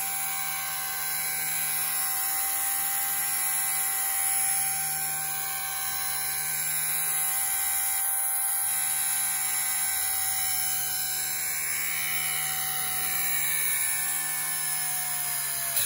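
Blade Nano CPs micro RC helicopter, fitted with a brushless motor conversion, running on the bench with its rotors spinning: a steady high-pitched motor whine over a rushing hiss from the blades. It cuts off suddenly near the end.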